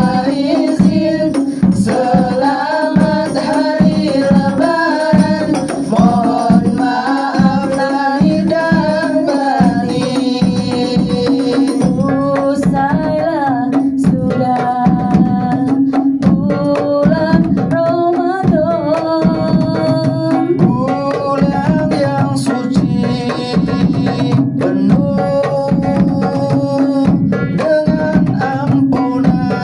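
Banjari ensemble of rebana frame drums playing a steady beat under sung Indonesian Eid song vocals.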